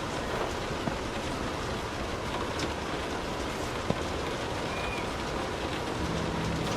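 Light rain falling on a car's roof and windows, heard from inside the cabin: a steady patter with scattered drop ticks and one sharper tap about four seconds in.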